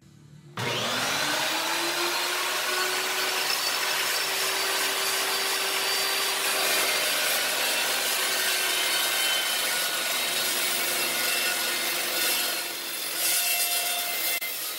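Evolution metal-cutting chop saw starting up about half a second in and running steadily through a cut in flat steel, a steady motor whine over the rough hiss of the blade biting the metal, easing slightly near the end.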